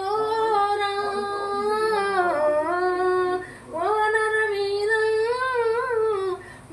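Female voice singing a Telugu devotional song to Hanuman, drawing out long held, gliding notes in two phrases with a short break between them.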